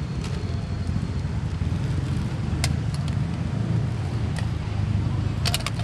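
Steady low rumble of outdoor street-market background noise with passing traffic. A few sharp light clicks come about halfway through and again as a quick cluster near the end.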